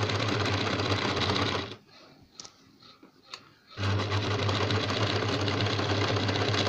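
Electric domestic sewing machine stitching a row of long gathering stitches at a steady speed. It stops for about two seconds after the first couple of seconds, with a few light clicks in the pause, then starts again and runs on steadily.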